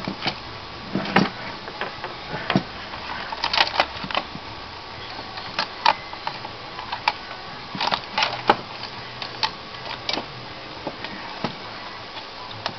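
Irregular clicks and light knocks as an HP Pavilion Slimline motherboard is worked loose and lifted out of its sheet-metal computer case, board and metal chassis knocking against each other.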